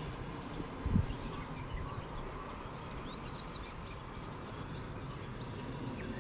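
Outdoor ambience: a steady low background rumble, with small birds chirping in short calls through the middle and a single dull bump about a second in.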